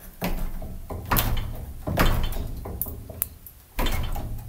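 A locked wooden door rattling and thudding in its frame as it is shoved by hand about four times without giving. The shoves make window panes in the next room vibrate.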